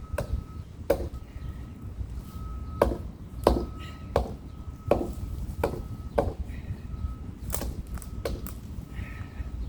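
A hand tool chopping into wood with about ten sharp strikes at an uneven pace, roughly one a second, a couple coming close together near the end.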